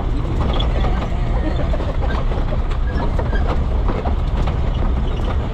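Off-road jeep's engine running as it drives over a rough, rocky dirt track, with a steady low rumble and frequent rattles and knocks from the bumps.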